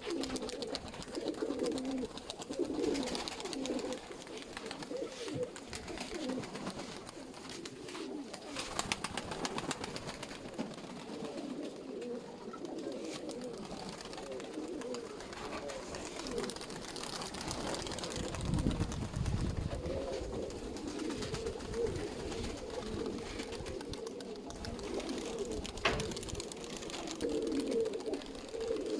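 Several domestic sickle-winged pigeons cooing continuously, their calls overlapping, with a brief low rumble about two-thirds of the way through and a single sharp click near the end.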